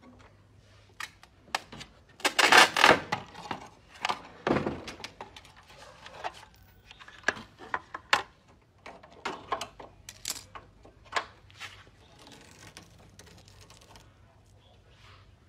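A car door side mirror and its plastic and metal fittings being pried and pulled off the door shell by hand: irregular knocks, clicks and clatters, loudest in a dense rattle a couple of seconds in and a second knock about two seconds later.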